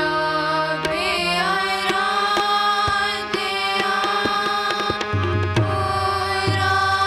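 Gurbani kirtan in raag Bilaval: young voices singing a shabad over two harmoniums, with tabla strokes keeping the beat.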